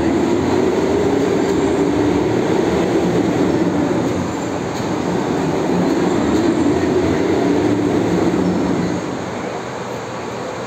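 Powerhouse overhead crane running under load as it lowers a hydro-generator rotor: a steady machine noise with a wavering whine. It eases off about nine seconds in.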